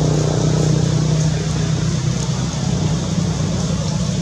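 An engine running steadily, a low hum that holds at an even level throughout.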